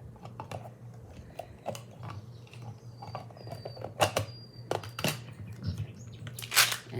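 Small plastic bags and snap-button charms being handled and dropped into a case: scattered light clicks and rustles, with a few sharper clicks about four and five seconds in and some faint high squeaks shortly before.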